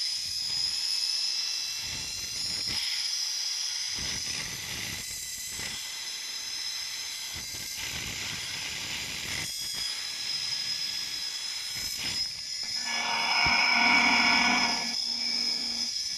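Zipline ride: wind rushing past and a steady high whine from the trolley running along the steel cable. About three quarters of the way through, a louder held pitched sound rises over it for about two seconds.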